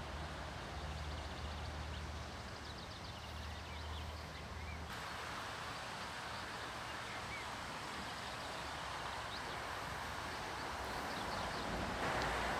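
Small birds chirping over outdoor ambience, with a steady low hum underneath that stops abruptly about five seconds in. Near the end a broad rushing noise swells: the first sound of an approaching train.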